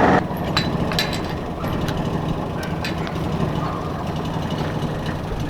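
John Deere Gator utility vehicle's engine running steadily as it tows a chain-link-fence pasture drag, with scattered clicks and rattles.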